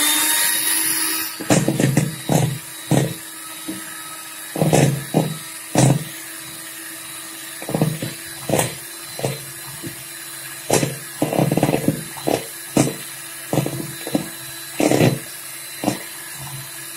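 Electric hand mixer running steadily with its twin wire beaters whisking beaten eggs in a plastic bowl. Irregular sharp knocks and clatters sound on top of the motor hum.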